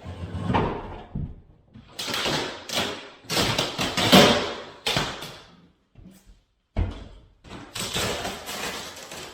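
Wooden cabinet being wrenched loose and moved: irregular bangs, thumps and scraping in short bursts, several of which stop abruptly.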